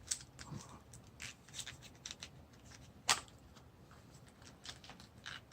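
Small plastic clicks and rubbing as the boots on a G.I. Joe action figure are pulled off and refitted, with one sharper click about three seconds in.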